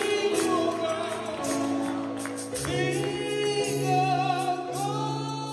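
Women's gospel praise team singing together into microphones, with long held notes. A steady low bass accompaniment comes in about halfway through.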